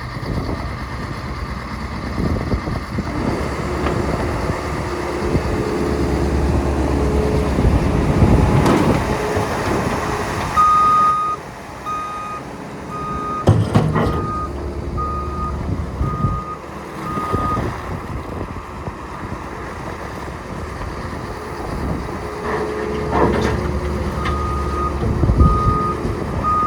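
Case SR240 skid steer's diesel engine running and revving as the machine is driven. Its backup alarm beeps about twice a second while it reverses, in two spells, the first starting a little before halfway and the second near the end. There is a sharp clank about halfway through.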